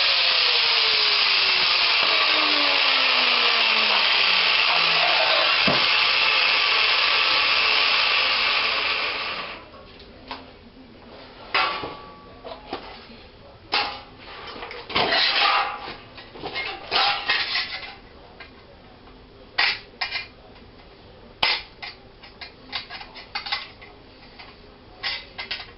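A power tool sanding or grinding, loud and steady, stops about nine seconds in. Then come scattered knocks, clatters and short scrapes of hand work.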